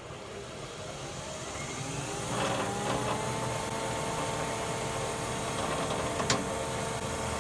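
1962 Powermatic 100 thickness planer spinning up, its hum rising in pitch and loudness over about three seconds, then running steady and quiet enough to talk over. A single sharp click about six seconds in.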